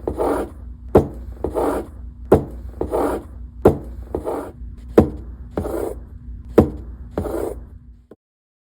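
Recorded heart sounds of aortic stenosis: each beat is a sharp first heart sound followed by a harsh crescendo-decrescendo systolic ejection murmur. About six beats, one roughly every 1.3 seconds, with a faint steady hum beneath; the recording cuts off suddenly about 8 seconds in.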